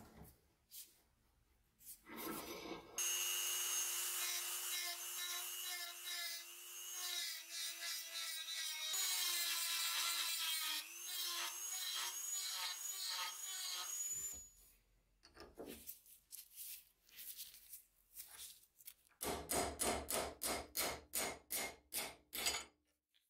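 Hand-held rotary tool with a burr grinding down the rusted pivot rivet of a gardening tool: a steady high whine for about ten seconds, its pitch dipping briefly as the burr bites. Near the end, a quick run of strikes, about four a second, as a punch drives out the rivet.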